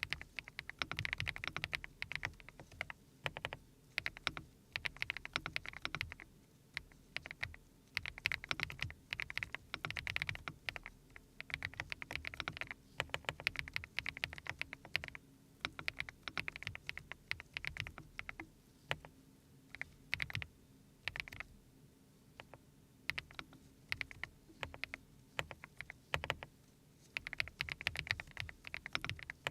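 Typing on a custom mechanical keyboard, the Haop Bronze fitted with SPM Hibiscus switches: quick runs of keystrokes clacking in bursts of a second or two, with short pauses between.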